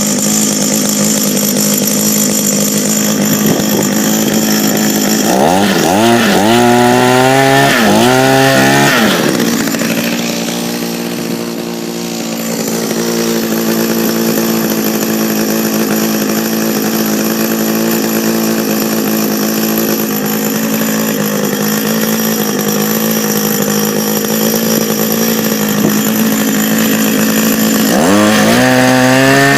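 Echo HRC 2400 hedge trimmer's small two-stroke engine running steadily, with the throttle blipped several times so the pitch rises and falls, about six seconds in and again at the end. It keeps running at idle, dipping a little, now that its carburettor has the correct gasket.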